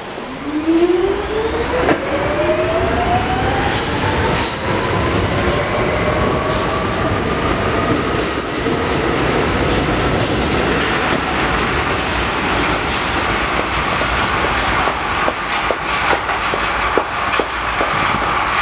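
R46 subway train pulling out of the station, its traction motors, fresh from overhaul, whining in a pitch that rises steadily for about ten seconds as it accelerates and then levels off. Wheel squeal comes in briefly partway through, and quick clicks of wheels over the rails follow as the cars pass.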